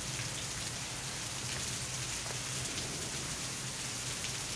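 Steady rain: an even hiss with a few faint scattered ticks.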